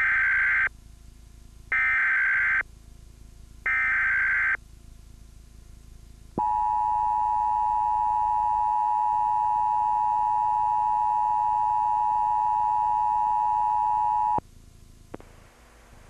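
Emergency Alert System broadcast tones. Three bursts of SAME digital header data come about two seconds apart, each just under a second long. Then the two-tone EAS attention signal holds steady for about eight seconds and cuts off suddenly.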